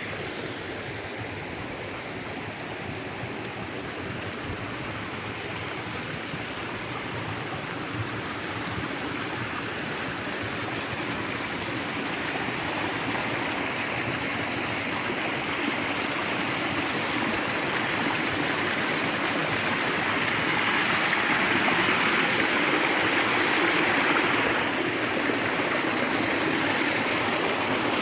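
Little Mashel River water rushing over rocks, a steady hiss that grows gradually louder.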